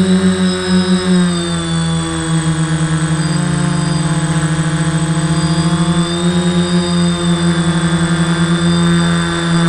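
Custom-built quadcopter's electric motors and propellers running in flight, heard from the camera mounted on the craft: a steady hum with a fast flutter, its pitch drifting slightly as the motor speeds change.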